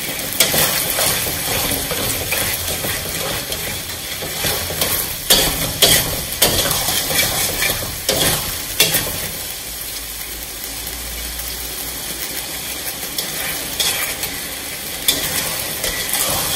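A metal spatula stirring and scraping a thick tomato-based sauce around a metal wok, with sharp clinks of the spatula against the pan, over the steady sizzle of the sauce cooking on the stove.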